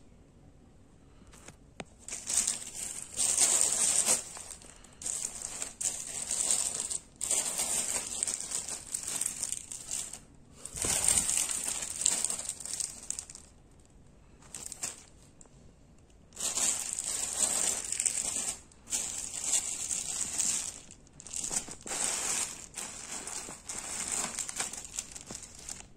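Clear plastic packets crinkling and rustling as a hand rummages through and handles a pile of packaged cloth face masks. The sound comes in irregular stretches with short pauses, starting about two seconds in.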